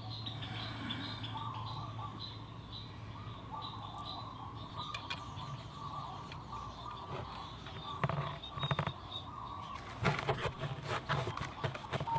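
Birds chirping over a low steady hum, with scattered clicks and rubbing from hand work on the scooter and a rag in the second half.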